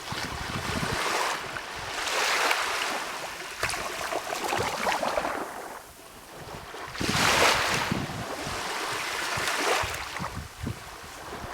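Small waves of a calm sea washing in and drawing back, in about five swells of hiss, the strongest about seven and a half seconds in.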